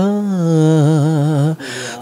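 A young male singer holds the last note of a Bhojpuri song line, without accompaniment, with a wavering vibrato. The note breaks off about a second and a half in, followed by a quick breath.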